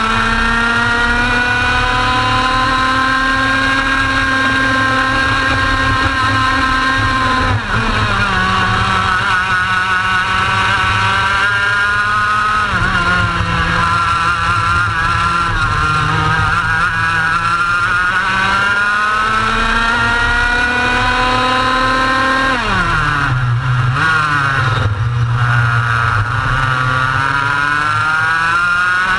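Racing kart engine heard from onboard at full throttle, its pitch climbing steadily up the straight, then dropping sharply as the driver lifts and brakes about seven seconds in. It picks up again, wavers through the corners, falls away hard for a tight turn near the twenty-three-second mark, and climbs once more near the end.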